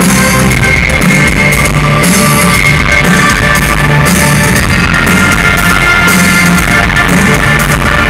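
Live industrial rock band playing loudly: distorted electric guitar, drum kit and electronic keyboards over a bass line that steps between a few low notes, heard from within the crowd.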